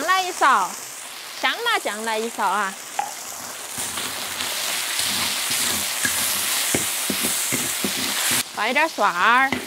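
Shredded pork sizzling in hot oil in a wok, stirred and broken apart with a wok spatula that scrapes and taps against the pan. The scraping is most frequent in the middle stretch.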